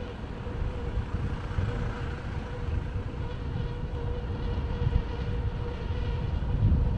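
Wind buffeting the camera microphone during a bicycle ride, an uneven low rumble that swells and fades, over a faint steady high whine.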